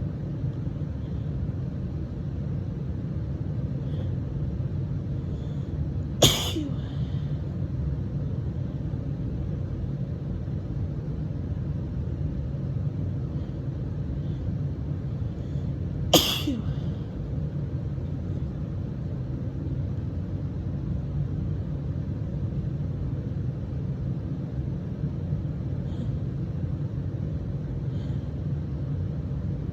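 A woman's hay-fever sneezes, two of them, about six seconds in and again about ten seconds later, each short and harsh with a brief falling tail. A steady low rumble lies underneath.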